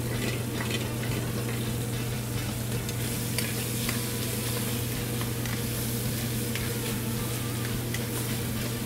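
Chicken pieces and mushrooms frying in hot oil in sauté pans on a gas range, a steady sizzle. A few light clicks come from metal tongs turning the chicken in the pan, over a steady low hum.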